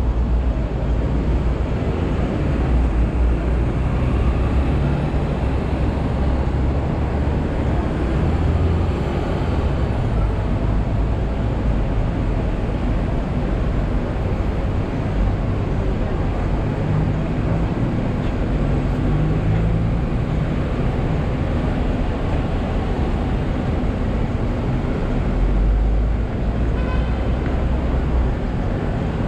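Steady city traffic noise with a heavy low rumble, heard from the upper deck of a Hong Kong double-decker tram that is standing still.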